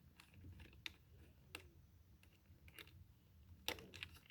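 A few faint, sharp plastic clicks and taps, with a small cluster near the end: hands fitting a replacement battery pack's wire connector inside a robot vacuum's battery compartment.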